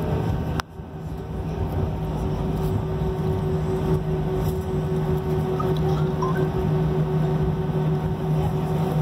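Cabin noise of an Airbus A319 rolling down the runway after landing: a steady jet-engine rumble with a low hum. About half a second in there is a sharp click, after which the sound briefly drops away and swells back within a second.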